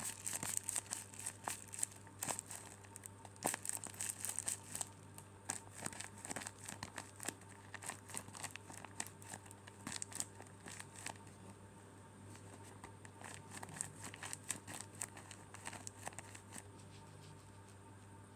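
A squishy toy being squeezed and handled, giving rapid crinkling and crackling like crumpled plastic or tape. The crackles are thickest at first and grow sparser in the second half.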